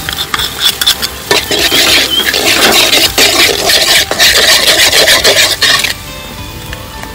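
Metal ladle scraping and stirring a thick chili paste in a steel wok, in quick rasping strokes with small clinks of metal on metal. The scraping stops about six seconds in.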